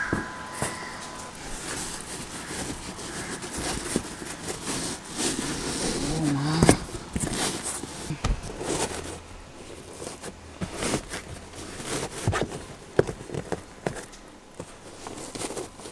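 Moulded 5D car floor mat being pushed and fitted into a rear footwell by hand: scraping and rustling against the floor, with many scattered knocks and clicks.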